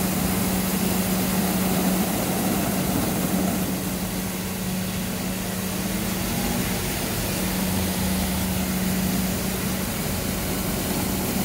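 Water jetting from a burst water main and spraying onto passing cars: a steady rushing hiss. A steady low engine hum from traffic idling and driving through the spray runs underneath.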